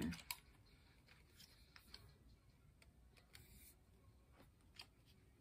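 Near silence with a few faint, scattered clicks and a brief rub of plastic as the phone-holder clamp on a ring-light tripod is handled and adjusted.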